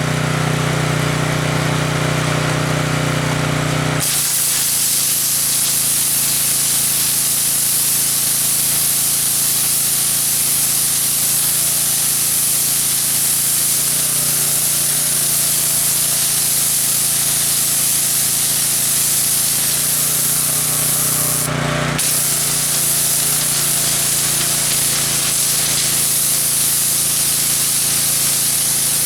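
Pressure washer's small engine running; about four seconds in the jet opens up and hisses steadily as it blasts the concrete, stopping briefly once near the 22-second mark before starting again.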